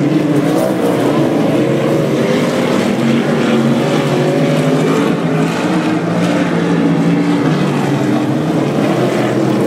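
Street stock race cars' engines running hard, several at once, their pitch rising and falling as the cars circle the dirt oval.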